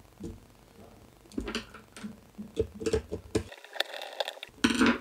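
Hands handling insulated control wires at a plastic contactor block: scattered light clicks and rustles.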